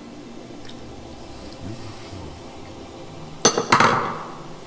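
A metal teaspoon clinks twice against a hard surface about three and a half seconds in, two sharp strikes with a short ring after them. Before that there are only faint, quiet sounds.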